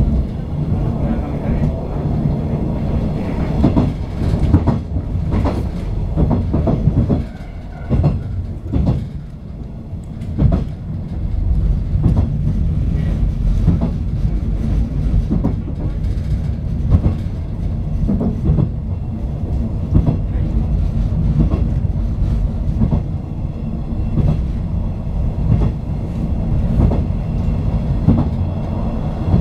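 485 series electric train running at speed, heard from inside the rear cab: a steady low rumble of wheels on rail with the clickety-clack of rail joints. It briefly quietens about seven to ten seconds in.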